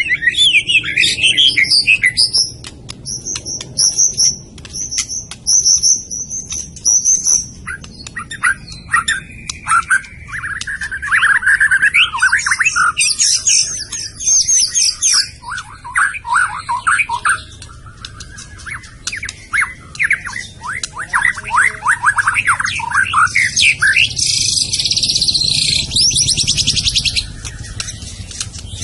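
White-rumped shama (murai batu) singing a long, varied song of clear whistled phrases, a held high whistle, and fast repeated trills, with a harsh buzzy stretch near the end.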